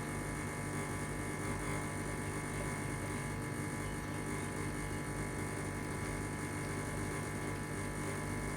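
Espresso machine's pump running steadily while a shot is extracting: an even, unbroken hum.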